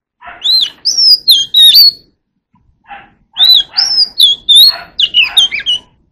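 Oriental magpie-robin singing: two loud phrases of whistled notes that slide up and down, mixed with some harsher notes, the second phrase starting about three seconds in.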